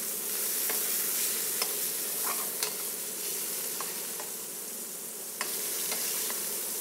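Floured veal scallopine sizzling steadily as they fry in hot oil in a stainless steel skillet, with scattered light clicks of metal tongs against the pan as the cutlets are turned.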